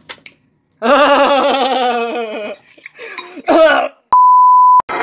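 A wavering, bleating voice sound lasting about two seconds, then a short vocal sound and a steady beep, like a censor bleep, that lasts under a second near the end.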